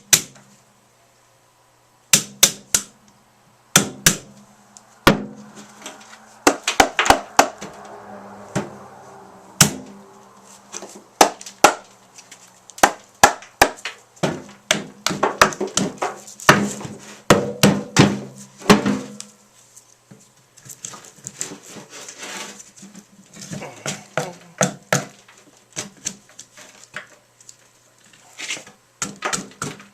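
Sharp, irregular knocks and scraping of a hand tool digging the old core out of a hollow juniper log, busiest in the middle stretch.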